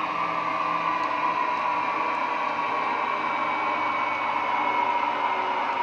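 Sound decoder in an OO gauge Dapol Class 68 model locomotive playing a JMC recording of the Class 68's diesel engine through its EM1 and bass-enhancer speakers. The engine note is steady and eases slightly lower as the model runs along the track.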